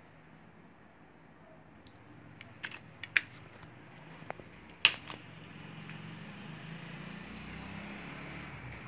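Sharp plastic clicks and snaps of compact discs being pressed onto and pried off the clear plastic hub of a CD digipak tray. There are a handful of clicks from about two and a half seconds in, the sharpest near five seconds, over a faint low hum.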